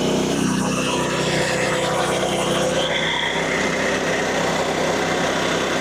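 Portable bandsaw sawmill with its small gas engine running steadily; the engine note shifts slightly under half a second in.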